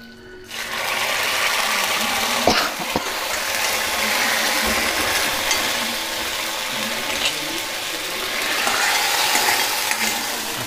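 Hot tempering oil with mustard seeds, dried red chillies, curry leaves and shallots sizzling as it meets the chicken kuruma. The hiss starts suddenly about half a second in and stays steady, with a couple of sharp clicks a couple of seconds in.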